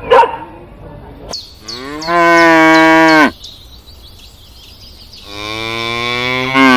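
A cow mooing twice. Each moo is a long, evenly pitched call lasting over a second, with a pause of about two seconds between them.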